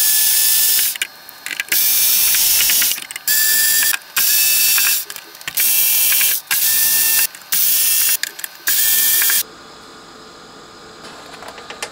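Cordless electric screwdriver undoing the screws that hold a mixing desk's circuit board, running with a steady whine in about eight short bursts, one screw after another.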